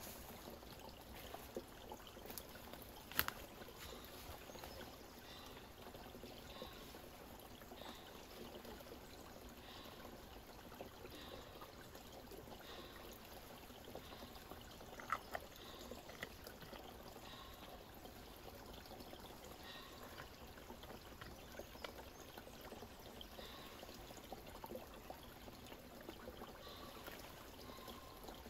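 Faint, steady trickling of water, with scattered light ticks and two sharper clicks, one about 3 seconds in and one about halfway through.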